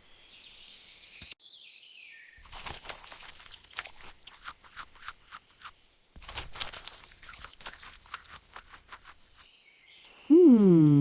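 Repeated short crunching and scraping sounds, like footsteps or digging in soil, with birds chirping in the background. Near the end a loud tone slides steeply downward.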